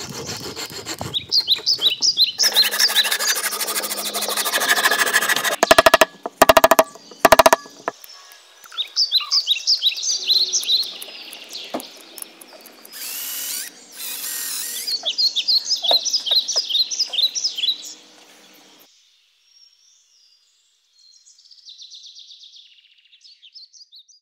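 Woodworking on birch branches: a hand saw cutting and a power drill running in short bursts, with small birds chirping in between. The sound drops almost to nothing for the last few seconds.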